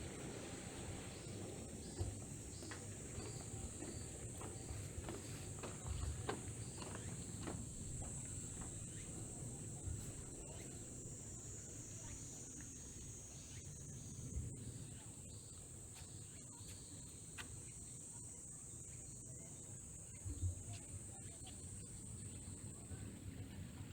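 Insects calling in a steady, high-pitched summer-night chorus, over a low background rumble with occasional faint ticks.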